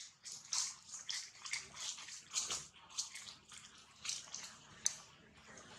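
Leaves and twigs rustling and crackling as macaques shift about in a leafy tree, in short irregular bursts a few times a second, with one sharp snap near the end.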